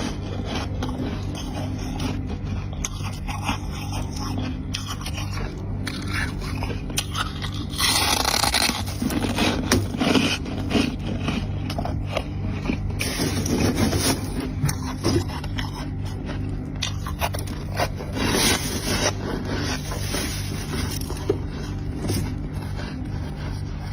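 Flaky, squeaky freezer frost chunks being bitten and chewed close to the microphone: a steady run of crisp crunching, crackling and scraping, with louder stretches of scraping about 8, 13 and 18 seconds in.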